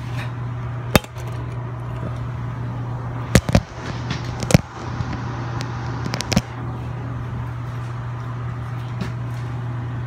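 Steady low hum inside a carriage of a Puyuma (TEMU2000) tilting express. A sharp click comes about a second in, and a few more clicks and knocks follow between about three and a half and six and a half seconds.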